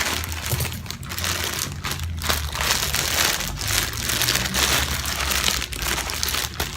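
Crinkling and rustling of a package's packaging as it is cut open with scissors and handled, a dense crackly rustle that rises and falls without a break.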